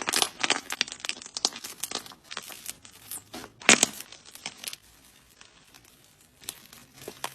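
Slime being squeezed and poked by hand, with dense sticky crackling and popping clicks. A sharp loud pop comes a little under four seconds in, and the sound thins to scattered soft clicks after about five seconds.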